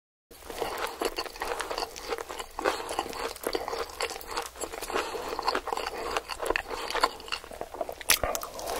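Fresh leafy greens being broken apart and handled by hand, a dense run of small irregular crisp snaps and crackles.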